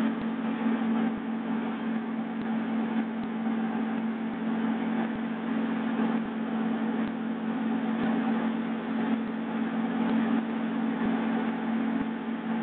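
Steady helicopter cabin noise, engine and rotors running in flight, with a constant low drone.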